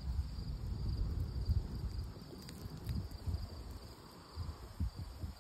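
Crickets chirping in a steady high trill over an uneven low rumble, with a couple of faint crackles from a burning wood campfire about two and a half and three seconds in.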